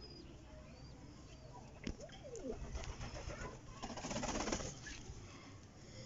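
Domestic pigeons cooing softly in their loft, with a short rustling burst about four seconds in.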